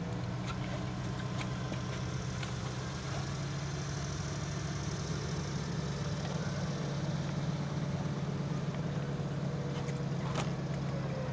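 Diesel engine of heavy construction equipment idling steadily, with a few faint metallic clinks.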